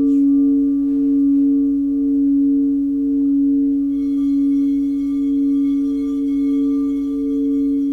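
Singing bowl sounding a sustained steady tone with a wavering pulse about once a second. Fainter high ringing tones join about halfway through.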